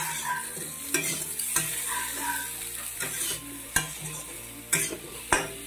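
A spatula stirring and scraping kohlrabi pieces and fried dried fish around a steel kadai, with several sharp clicks of the spatula against the pan over a steady frying sizzle.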